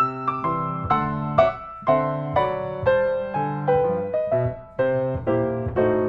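Background piano music: notes and chords struck one after another at an unhurried pace, each fading before the next.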